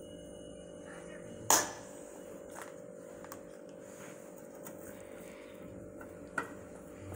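A steel plate clinks sharply once about a second and a half in and again near the end, with a few faint taps between, as bread and fingers touch it. A steady low hum runs underneath.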